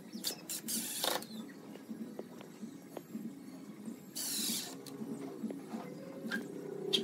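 Makita 18V cordless impact driver driving small screws into a metal hinge on pine pallet wood, in two short bursts, about a second in and about four seconds in.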